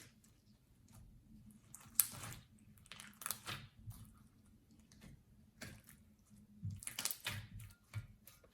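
Quiet handling sounds of a slime kit: scattered soft clicks, taps and short rustles of hands working the plastic slime container and its packaging, with a sharper click about two seconds in.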